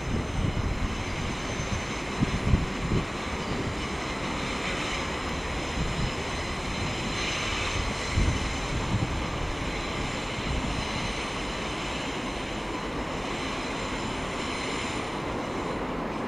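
Class 170 Turbostar diesel multiple unit running slowly into a station platform: a steady rumble of the train, buffeted by wind on the microphone, with strong gusts about two and a half and eight seconds in.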